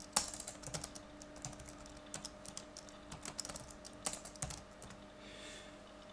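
Typing on a computer keyboard: quick, irregular key clicks that thin out about four and a half seconds in, over a faint steady hum.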